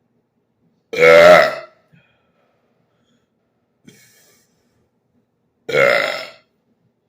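A man belching deliberately, twice: two loud burps, each under a second long, about five seconds apart.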